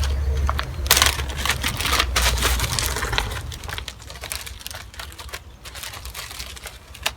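Irregular clicks and light knocks of small objects being handled, over a low hum that fades out about three seconds in.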